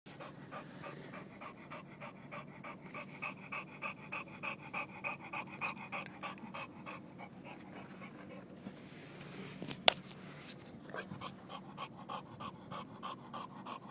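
English bulldog panting hard and fast after a run, about four to five breaths a second. A single sharp click sounds about ten seconds in.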